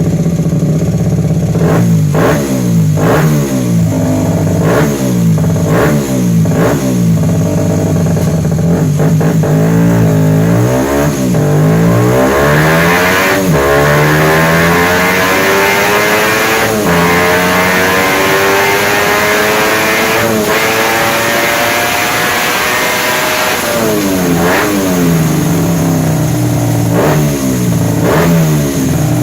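Kitaco 88cc DOHC single-cylinder mini-bike engine with a Mikuni VM26 carburettor being revved: a series of quick throttle blips, then a long climb to high revs held for about ten seconds, then more quick blips near the end.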